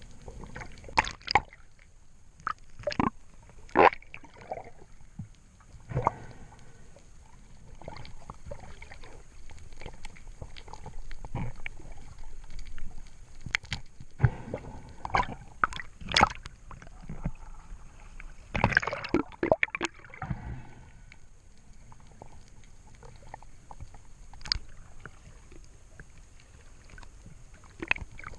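Water sloshing and gurgling around the spearfisher's camera, with irregular sharp clicks and knocks and a longer gurgling rush about two-thirds of the way through.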